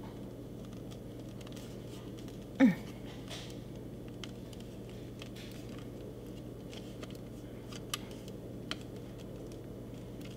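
Hard plastic ball casing of a dog toy being gripped and twisted in the hands to open it, giving small scattered clicks and creaks over a steady room hum. About two and a half seconds in there is one brief, louder falling vocal sound.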